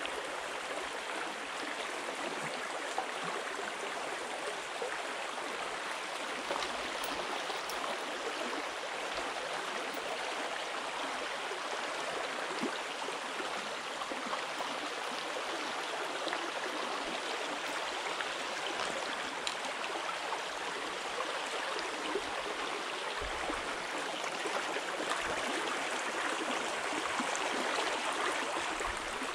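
Shallow, fast-flowing stream running over a gravel bed: a steady rush and ripple of water, a little louder near the end.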